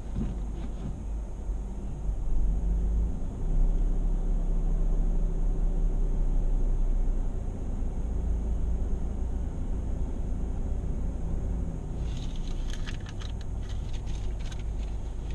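Steady low rumble heard inside a car's cabin, with the car's engine idling and car-wash equipment running; it swells for a few seconds near the start. For about three seconds near the end comes a run of short scratchy scrubbing strokes, a hand brush working on the car's front.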